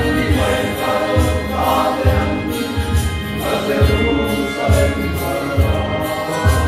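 Men's choir singing a hymn together, with a steady low beat underneath.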